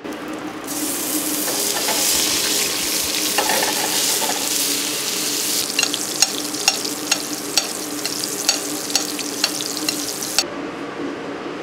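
Fish fillet sizzling in butter in a stainless steel frying pan, with a metal spoon scraping the pan and tapping its rim about twice a second as it bastes, from about halfway through. The sizzle cuts off suddenly near the end.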